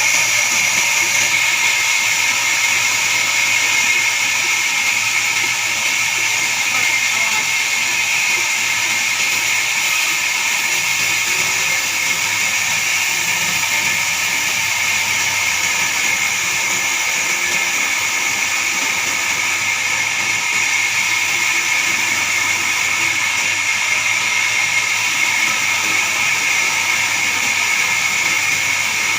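Horizontal band sawmill running, its band blade cutting through a pine log: a steady, high-pitched hiss with a thin whine that does not change.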